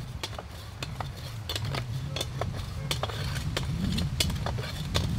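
Irregular clinks and knocks of kitchen utensils and containers being handled, over a steady low rumble.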